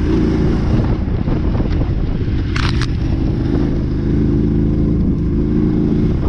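Motorcycle engine running steadily under way on a dirt track, heard from a camera mounted on the bike, with two brief sharp noises about two and a half seconds in.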